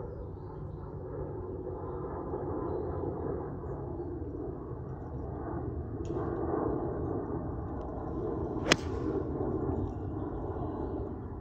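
A 9-iron strikes a golf ball once, a single sharp crack about nine seconds in, over steady low outdoor background noise.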